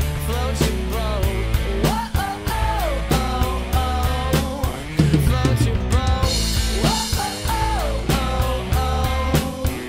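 Tama Superstar drum kit played live along with a recorded pop song with a sung vocal: steady snare and bass drum strokes under the singing, with cymbals ringing brighter from about six seconds in for a couple of seconds.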